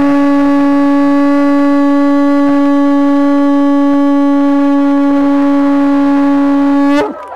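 Conch shell blown as a horn: one long, steady note held for about seven seconds, then cut off near the end.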